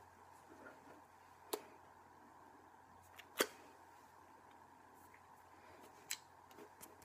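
A few sharp taps over a steady low hum, the loudest about three and a half seconds in.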